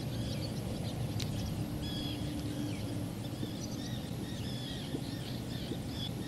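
Small birds chirping, many short high calls one after another, over a steady low outdoor rumble.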